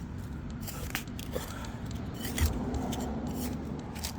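Digging into soil for a shallow target: a series of small scrapes and clicks.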